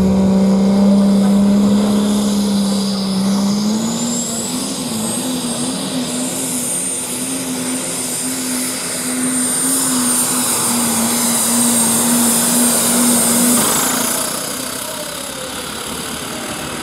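New Holland pulling tractor's turbocharged diesel engine running flat out under load as it pulls the sled. The engine note steps up in pitch a few seconds in, and a high turbo whine climbs and then holds over it. Near the end the engine backs off and the whine falls away.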